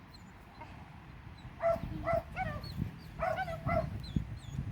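A dog whining and yipping in a string of short high-pitched calls, starting about two seconds in.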